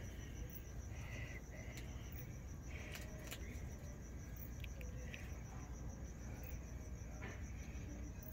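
Crickets chirping, a steady high pulsing trill, with a few faint clicks.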